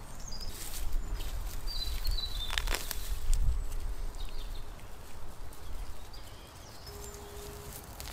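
Grass rustling and soil being scraped and pulled as a wild onion bulb is dug up by hand with a small tool. Short bird chirps come through, over a low rumble of wind on the microphone.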